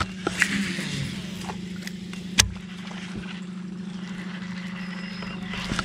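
Electric trolling motor on a bass boat humming steadily at one pitch, with a single sharp click about two and a half seconds in.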